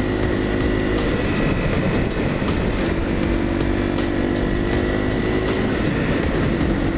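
Single-cylinder Honda dual-sport motorcycle engine running at a steady cruising speed, its note fading for a moment about a second in and coming back, with wind rushing over the microphone.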